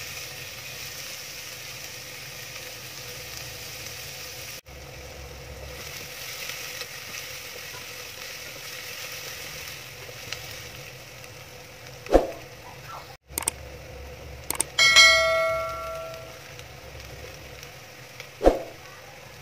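Sliced onions sizzling as they fry in oil in a steel pot, stirred with a wooden spatula that knocks twice against the pot's side in the second half. Partway through, a few clicks and a ringing bell chime, the notification-bell sound effect of a subscribe-button animation.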